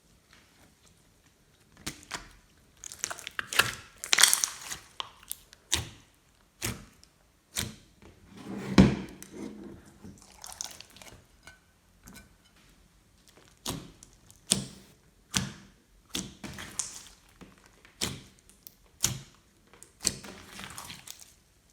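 Glossy slime being squished and kneaded by hand: irregular sticky squelches and pops, roughly one a second, the loudest about nine seconds in.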